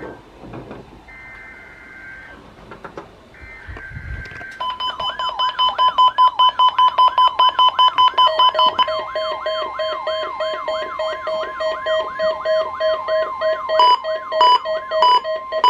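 NOAA Weather Radio Emergency Alert System test: rasping two-pitch SAME header data bursts, then the steady 1050 Hz warning alarm tone, which signals a weather radio alarm test. A second warbling alarm pulses over the tone at about three pulses a second, turning to a lower pulsed beep partway through.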